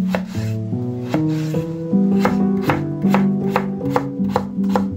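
Chef's knife cutting peeled raw potatoes on a wooden cutting board: a run of sharp knocks as the blade meets the board. The knocks come more often from about two seconds in, over background music.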